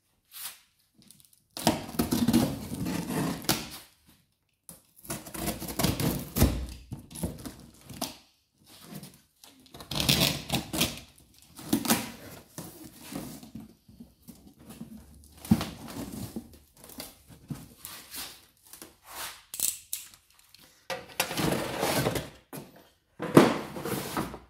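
A large cardboard parcel being opened: packing tape slit with a box cutter and pulled away, the flaps folded back and cardboard packing scraped and knocked. It comes in irregular bursts of crackling and thuds with short pauses, loudest near the end.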